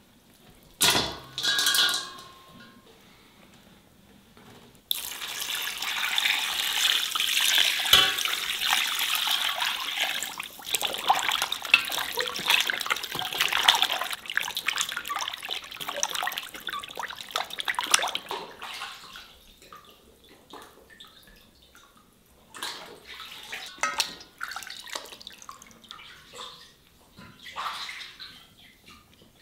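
Water sloshing and splashing in an enamel basin as hands wash raw quail carcasses, continuous for several seconds and then in scattered splashes. A knock with a brief ringing about a second in.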